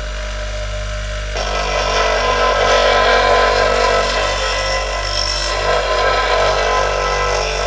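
Cheap bench grinder running with a steady hum; about a second and a half in, the steel of a spindle roughing gouge is pressed to its grey grinding wheel and rotated across it, giving a loud rough grinding noise that lasts until near the end.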